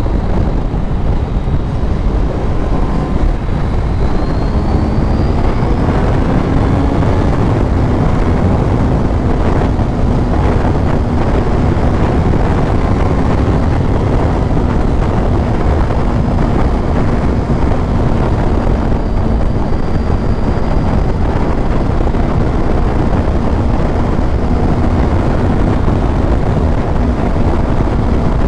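Motorcycle riding along with its engine running steadily under heavy wind rush on the microphone. The engine note climbs slightly about five seconds in, then holds steady.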